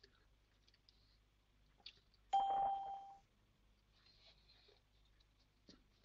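A single electronic notification chime about two seconds in: one clear steady tone that fades out within a second. Otherwise near silence with a few faint clicks.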